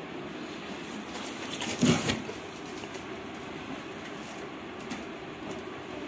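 Electric table fan running with a steady whooshing hiss, with a brief louder rustle of the fan being handled about two seconds in.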